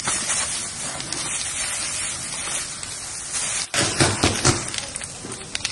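Water from a fire hose spraying onto burning rubble with a steady, rain-like hiss and scattered ticks. About three and a half seconds in the sound cuts to a large fire of burning debris crackling, with several loud sharp pops.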